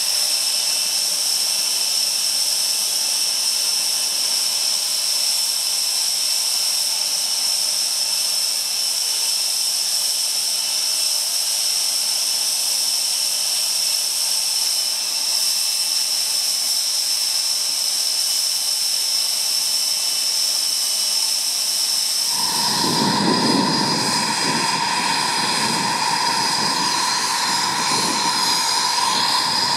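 Panavia Tornado's twin RB199 jet engines idling on the ground with a steady high-pitched whine. About three-quarters of the way through, the sound switches abruptly to a taxiing Eurofighter Typhoon: a deeper jet rumble under a steady mid-pitched tone.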